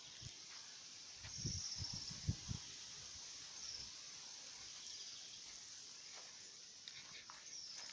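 Insects shrilling steadily in farm fields, a faint high hiss that swells and fades. A few soft low thumps come about one and a half to two and a half seconds in.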